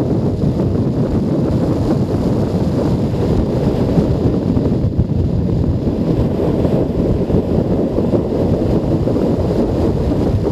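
Steady wind roar on a helmet camera's microphone while riding a Junak M12 Vintage 125 cc motorcycle at road speed, with the engine and road noise blended into it.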